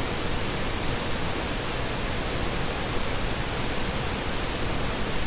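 Steady, even hiss with no other sound: background recording noise.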